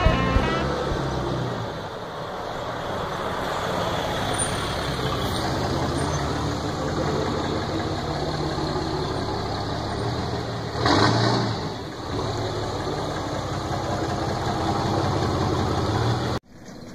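Ram 2500 pickup's engine idling with a steady hum, with a brief louder burst about eleven seconds in; the sound cuts off suddenly near the end.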